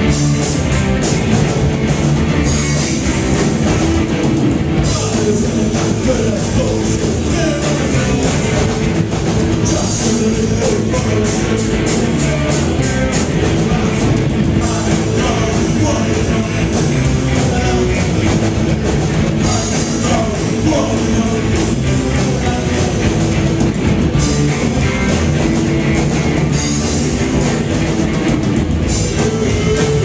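A live rock band playing loud: two electric guitars, a bass guitar and a drum kit, with a singer.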